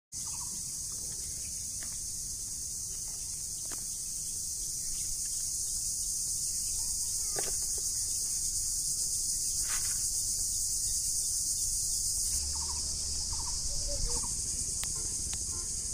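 Steady, high-pitched drone of an insect chorus, with a few faint clicks.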